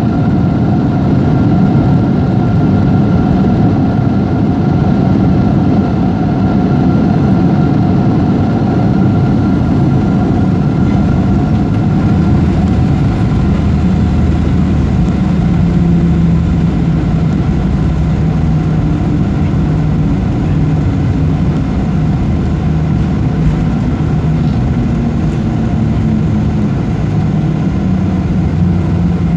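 Cabin noise of a Ryanair Boeing 737-800 rolling out along the runway after landing: loud, steady jet-engine and wheel rumble. A high whine fades out about halfway through, and a lower hum comes in during the second half.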